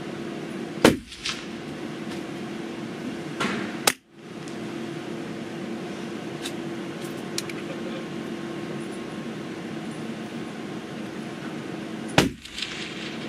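Three .22 LR rifle shots, each with a short echo: one about a second in, one about four seconds in, and one near the end, over a steady background hum.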